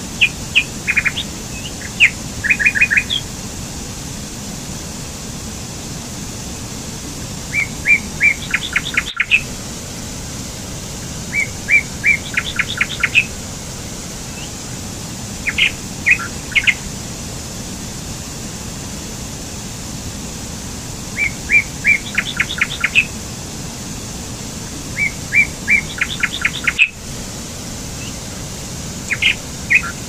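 Steady rush of a small waterfall cascading over rocks in a stream, with a songbird singing short phrases of rapidly repeated notes every few seconds.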